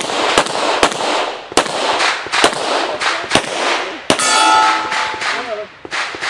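Pistol shots from a Springfield Armory XDm in .40 S&W, about eight in a row spaced roughly half a second to a second apart, each with a short echo. About four seconds in, one shot is followed by a metallic ring lasting under a second, a steel target being hit.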